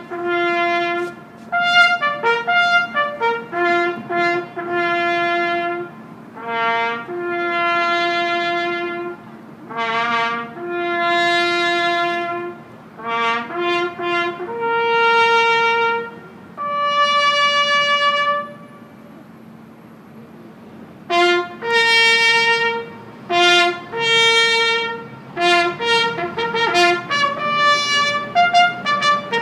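A solo trumpet plays a slow call: quick short notes alternating with long held ones, with a pause of about two seconds past halfway before the playing resumes.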